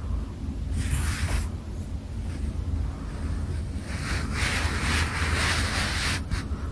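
A sleeping pet rabbit snoring: two noisy, hissing breaths, a short one about a second in and a longer one about four seconds in, over a steady low hum.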